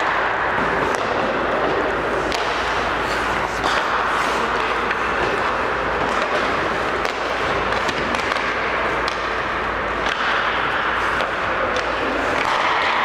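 Steady, loud hiss of ice-rink ambience with scattered sharp clicks and knocks.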